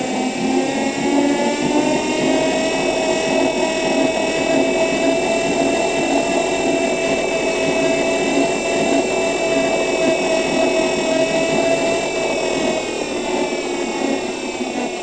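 Electric city bus's drive motor whining while running: a high whine that rises slightly over the first couple of seconds and then holds steady over a rumbling noise, the main tone dying away near the end.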